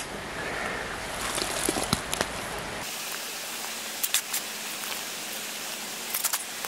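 A shovel scraping and pushing loose soil into a hole in grassy ground, heard as a few clusters of short scrapes and clicks over a steady hiss.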